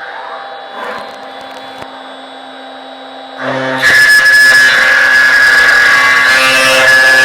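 CNC copy router machining an aluminium profile: a steady hum with a few small clicks, then about three and a half seconds in the router cuts into the aluminium with a loud, steady high-pitched whine.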